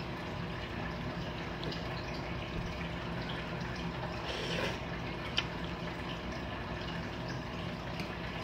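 Eating noodle soup: a short slurp of noodles about four seconds in, then a few light clicks of chopsticks and spoon against the bowl.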